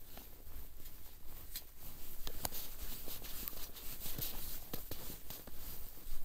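A cork being worked up out of a wine bottle's glass neck with a corkscrew: a run of short, irregular creaks and clicks over hand-handling noise.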